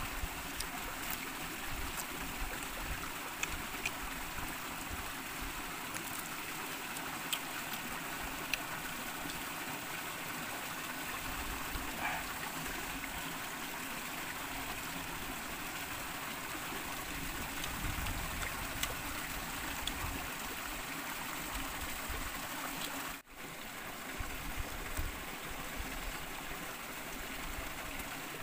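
Steady rush of a shallow flowing stream over rocks, with scattered small clicks and mouth sounds of eating close by. The sound cuts out for an instant about two-thirds of the way through.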